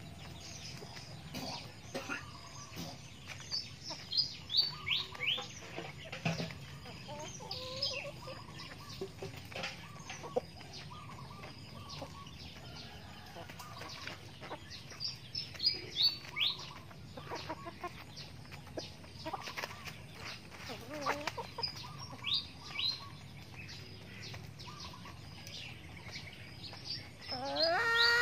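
Chickens clucking softly while feeding, with runs of short, high, falling chirps. Near the end a louder, drawn-out call begins.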